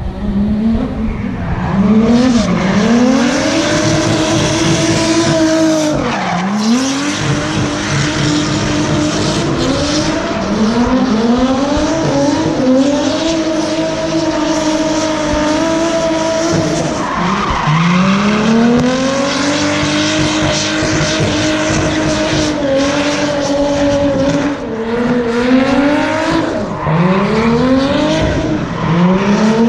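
Drift car engine revving hard, its pitch climbing and dropping again and again as the throttle is worked through the slides, with the tyres squealing and skidding.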